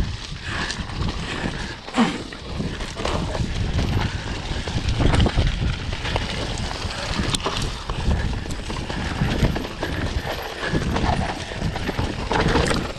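Enduro dirt bike on a rough, muddy trail: a constant low rumble with irregular knocks and clatter, the sharpest about 2 seconds in and again past the middle.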